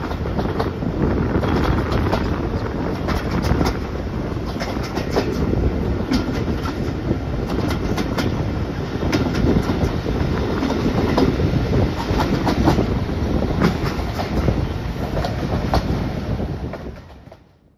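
Train running along the track: a steady rumble with frequent sharp clicks of the wheels over rail joints. It fades out about a second before the end.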